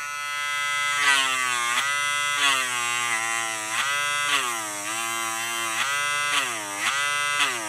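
Handheld rotary motor tool spinning a felt polishing wheel, a steady whine whose pitch sags several times and then recovers as a tarnished copper part is pressed against the wheel and eased off, loading the motor.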